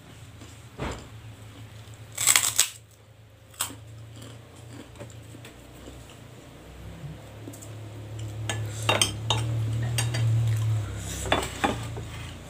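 Tableware clinking and knocking: a few sharp clinks, a short loud clatter about two seconds in, and more clinks near the end. A low drone swells in the second half.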